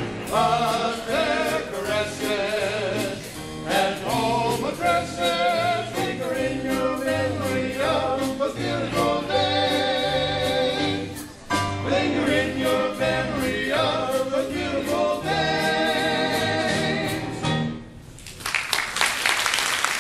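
Male chorus singing a show number with instrumental accompaniment, the song ending about 18 seconds in, followed by audience applause.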